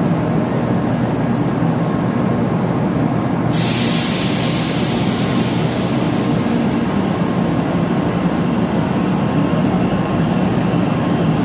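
JR West 500 series Shinkansen train pulling slowly into a station platform: steady running noise, with a hiss that comes in suddenly about three and a half seconds in.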